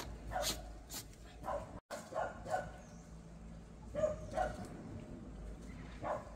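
A dog barking in short, separate barks, a few in quick succession with pauses between them.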